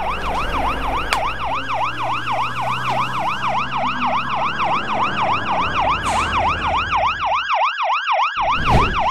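Ambulance siren sounding a fast electronic yelp, its pitch rising and falling about four times a second without a break, over a low rumble that drops out briefly near the end.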